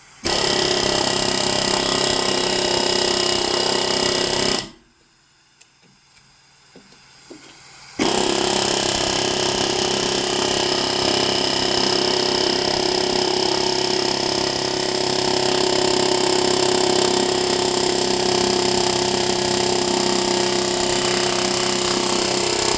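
Pneumatic air hammer hammering at a locking wheel nut to get it off. It runs in a burst of about four and a half seconds, stops for about three seconds, then runs steadily through to the end.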